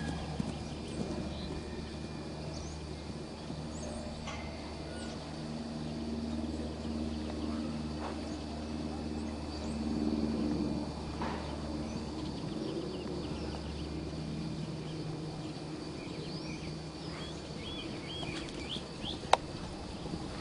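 Hoofbeats of a pony cantering on arena sand, over a steady low outdoor hum. Small birds chirp a few times near the end, and there is a single sharp click shortly before the end.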